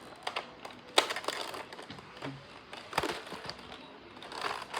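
Sharp plastic clicks and knocks from a Nerf blaster being handled and fired, the two loudest about two seconds apart, with lighter clicks between.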